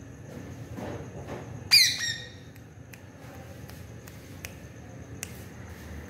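Indian ringneck parakeet giving a single loud squawk about two seconds in, falling slightly in pitch, with a few faint ticks afterwards.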